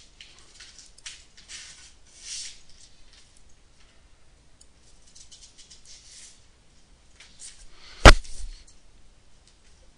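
Faint scratchy strokes of a drawing tool moved over a surface, several short ones in the first few seconds, then one sharp, loud click about eight seconds in, the loudest sound.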